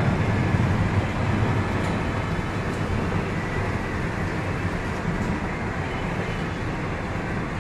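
Steady rushing noise of a bottled-water filling station running, with water flowing from its stainless-steel nozzles into large plastic bottles.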